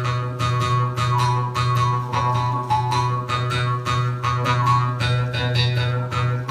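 Instrumental music: quick, regular plucked-string notes over a steady low drone.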